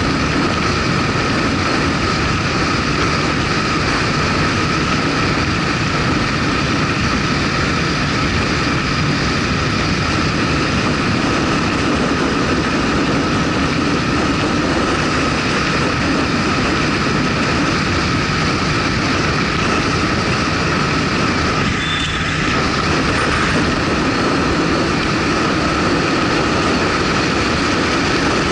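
Motorcycle riding along at a steady speed: the engine's steady drone under a constant rush of wind and road noise, dipping briefly about three-quarters of the way through.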